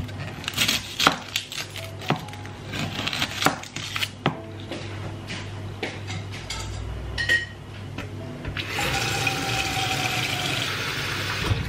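Cleaver chopping on a wooden chopping board: a run of sharp knocks over the first four seconds or so, then a few scattered knocks. About three seconds before the end, tap water starts running steadily into a saucepan.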